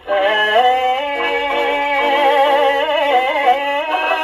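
1950s Japanese popular song playing from a 78 rpm shellac record on a Columbia Grafonola Model 116 acoustic phonograph. The melody is held on long, wavering notes over the accompaniment, coming in just after a brief dip at the start.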